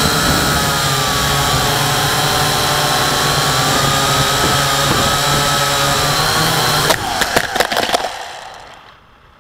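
Quadcopter's electric motors and propellers whining steadily, heard close from the on-board camera. About seven seconds in, a clatter of knocks comes as it touches down on gravel, and the motors then spin down and fade away.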